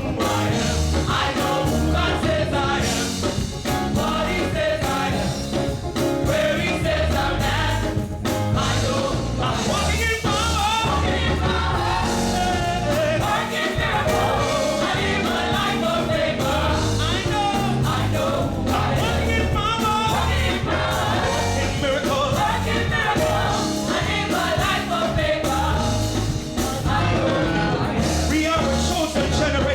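Gospel singing with a band: voices sing over a steady beat and bass.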